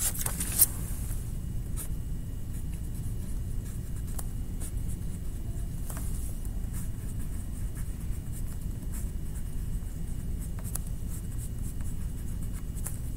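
Sky-blue colouring tool scratching across paper in steady strokes as the sky is coloured in, over a steady low hum, with a sharp click about half a second in.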